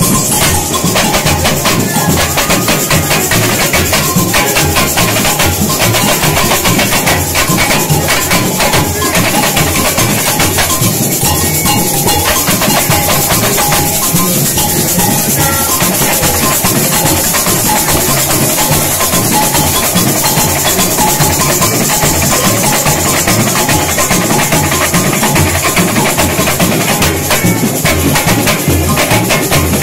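Samba school bateria playing a samba rhythm at full strength: deep surdo bass drums under tamborims and other percussion, loud and steady throughout.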